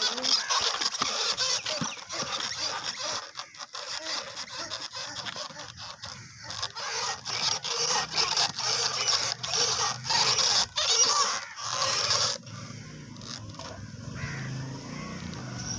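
Hard plastic wheels of a ride-on toy horse scraping and crunching over gritty dirt as it is rocked and rolled. The scraping stops about twelve seconds in, leaving a quieter low hum.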